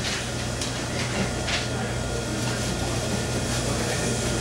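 Steady room noise: a low hum under an even hiss, with a couple of faint short ticks about half a second and a second and a half in.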